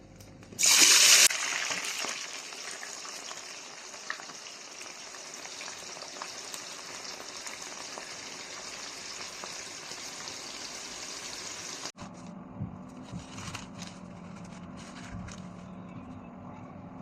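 Food dropped into hot oil in a pan: a sudden loud sizzle that settles into steady frying. About twelve seconds in, the sound cuts to a quieter sizzle with a few light clicks and a low hum.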